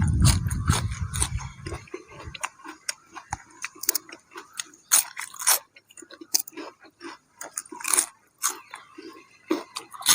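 Wind buffeting the microphone for about the first two seconds, then a person chewing crunchy food close to the microphone, with many irregular crisp crunches.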